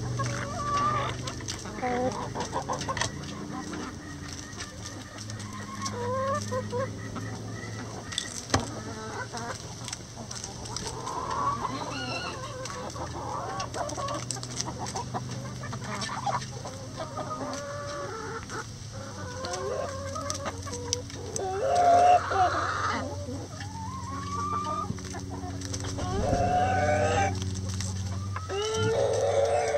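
A flock of hens clucking and making short rising calls as they crowd and peck at a hanging cabbage, the loudest call a little over two-thirds of the way through, over a steady low hum.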